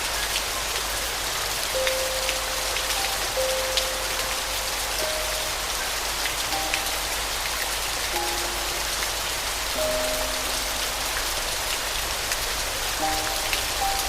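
Steady rain falling, with scattered drops ticking close by. Soft piano plays slow single notes over it, a few seconds apart.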